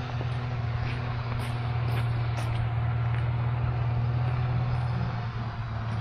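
A vehicle engine running steadily, a constant low hum.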